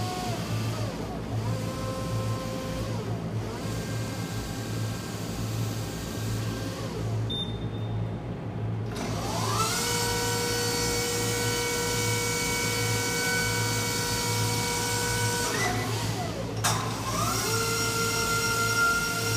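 Electric forklift's hydraulic pump motor whining as the clamp attachment is worked. The whine slides up in pitch about halfway through and holds steady, then dips and climbs again near the end, over a low steady hum.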